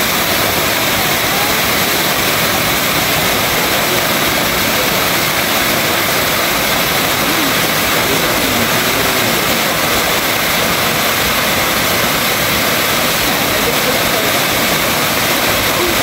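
Curtis Falls waterfall: a steady, even rush of water plunging down a rock face onto boulders.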